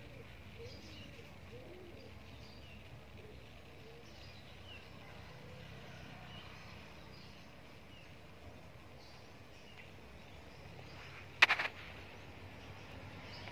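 Faint outdoor ambience: scattered short bird chirps over a low steady rumble. About eleven seconds in comes a brief, sharp clatter of a few quick clicks, the loudest sound here.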